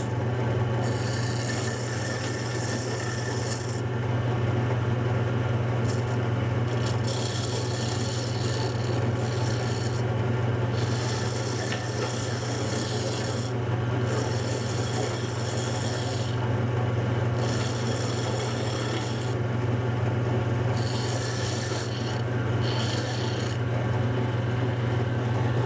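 Wood lathe running with a steady low hum while a turning tool scrapes the spinning wooden spindle, the hissing cut starting and stopping in repeated passes of a few seconds each.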